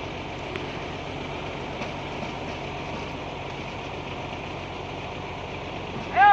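Heavy truck diesel engine running steadily at low revs. Right at the end a loud shout breaks in.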